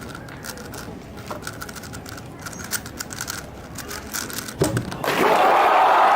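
Fast clicking of a Rubik's Cube being turned rapidly in a speedsolve, then about five seconds in a crowd suddenly breaks into loud cheering and applause.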